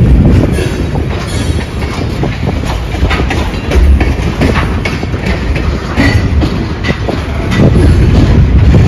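Freight train cars (steel gondolas and covered hoppers) rolling past at low speed: a steady heavy rumble with repeated wheel clicks, and two brief high squeals about six and seven seconds in.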